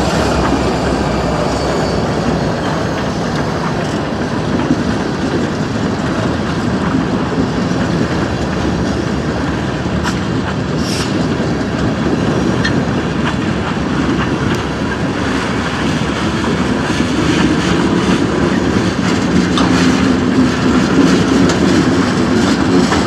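A string of railroad tank cars rolling past, steel wheels clicking over rail joints, with a brief high squeal about halfway through.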